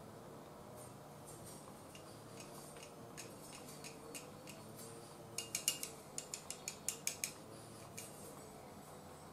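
Chopsticks clicking against ceramic bowls while eating: a few light taps, then a quick run of about a dozen sharp clicks a little past the middle.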